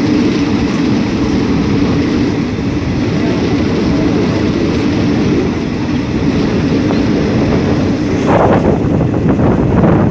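Moving passenger train heard from an open window: a steady rumble of the wheels on the track. About eight seconds in, wind starts buffeting the microphone.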